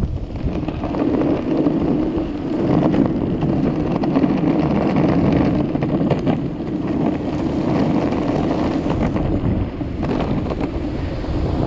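Wind rushing over the microphone, with the steady rumble of electric skateboard wheels rolling on street pavement and a few faint ticks from bumps in the road.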